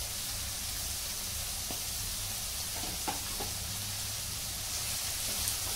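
Chopped vegetables (cabbage, carrot and peas) sizzling steadily in hot oil in a wok as a spatula stirs them, with a few light knocks of the spatula against the pan.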